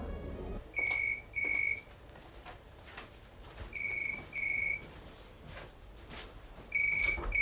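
Electronic telephone ringing in the British double-ring pattern: three double trills, each pair of short high tones repeating about every three seconds, before the call is answered.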